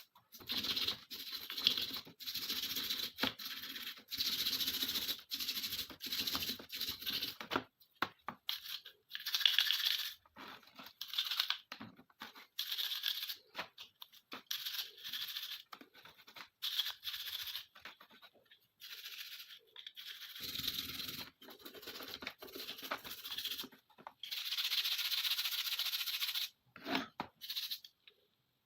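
Repeated scratchy scrubbing strokes on pistol parts, in runs of one to three seconds with short pauses between them.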